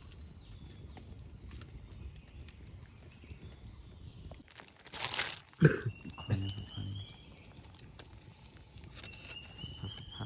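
A wood fire crackling low, then a plastic bag being crumpled and handled in a loud rustling burst about halfway through, with a sharp knock just after it. A short high rising whistle-like call sounds twice in the second half.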